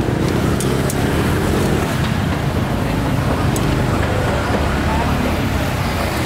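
Street traffic running steadily close by, a continuous low engine hum, with indistinct voices of people around.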